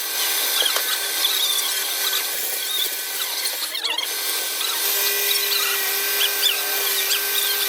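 High-speed power tool running steadily on wood with a continuous whine, and short high squeaks scattered over it.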